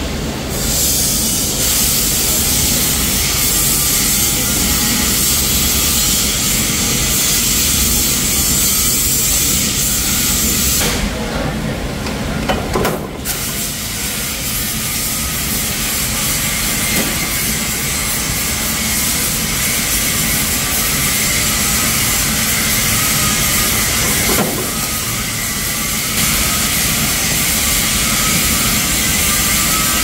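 Steady noise of running sheet-metal workshop machinery, a continuous rumble with hiss, and no distinct strikes.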